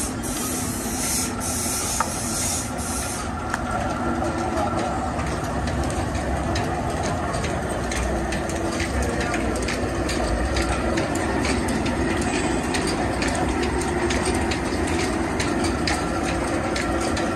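Sawmill machinery running steadily: a low rumble with a hum over it, and a hiss during the first few seconds.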